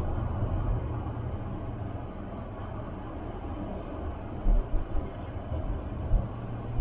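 Car driving, heard from inside the cabin: a steady low road-and-engine rumble, with a few short low thumps in the second half.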